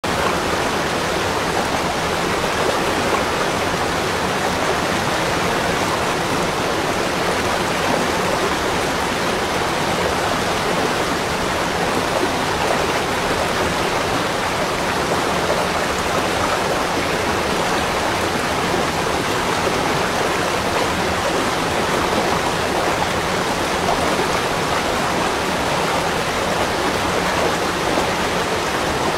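Steady, unbroken rush of running water, as from a waterfall or fast stream, holding an even level with no changes or distinct splashes.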